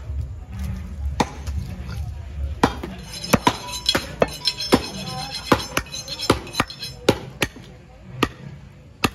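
A butcher's cleaver chopping beef on a wooden block. Sharp, irregular strikes come about two a second and grow sparser near the end.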